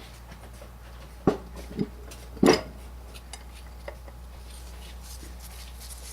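Metal turbo parts and tools knocking and clinking as they are handled: three sharp knocks in the first half, the third the loudest, then a faint tick.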